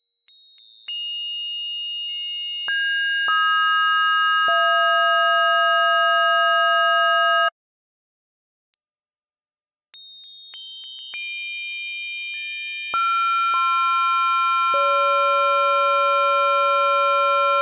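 Synthesized bell-timbre model: the partials of an old Novodevichy Convent bell sounded as steady pure sine tones, added one at a time from the highest down to the lowest hum tone, then held together as a chord without decay. This happens twice: the first chord cuts off abruptly a little past the middle, and a second bell's partials build up the same way from about ten seconds in.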